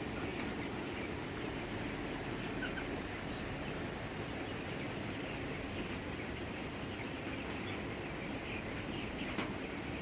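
Poultry-farm ambience: faint, scattered chicken calls over a steady background noise, with one sharp click near the end.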